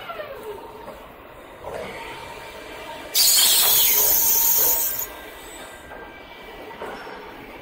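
An automatic water meter finishing machine running: a motor whine falls in pitch at the start, and steady machine whine continues. About three seconds in, a loud hiss lasts about two seconds.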